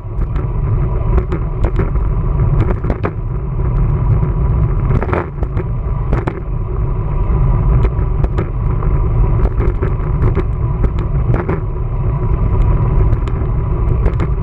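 Wind buffeting the microphone of a camera riding on a moving bicycle: a steady, loud low rumble, with scattered sharp knocks and rattles as the bike goes over bumps in the road.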